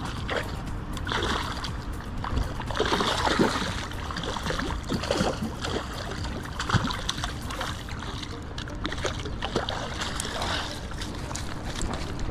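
Hooked trout thrashing and splashing at the water's surface as it is steered into a landing net and lifted out, with background music over it.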